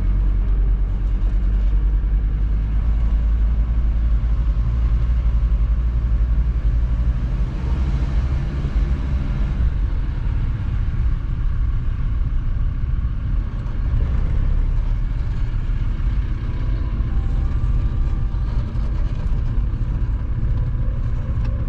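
Road and engine noise inside a moving vehicle's cabin while driving: a steady low rumble with tyre hiss.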